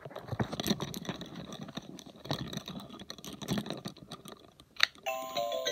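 LeapFrog electronic toy book being handled, its plastic case rubbing and clicking against a soft blanket. Near the end a sharp click from a button press, then the toy's electronic start-up jingle begins, a short melody of clean beeping notes.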